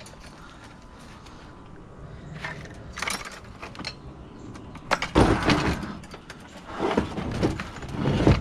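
Metal tools rattling and clanking in buckets moved on a hand dolly: light clicks at first, then louder, irregular knocks and clatter from about five seconds in.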